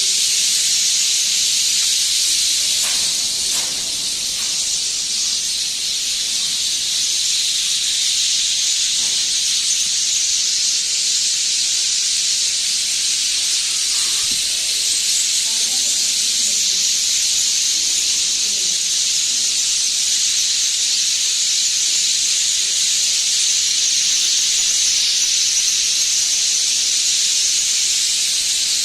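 Dense, steady chorus of a large flock of birds chirping together at their roost, so many voices that they blend into one continuous high-pitched wash.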